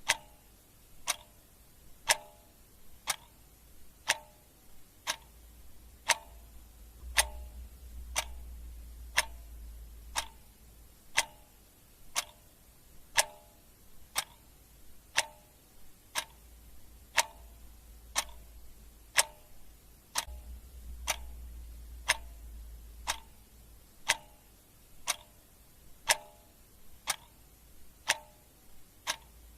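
Clock ticking steadily, about one tick a second, each tick a sharp click with a short ring. A faint low hum lies underneath at times.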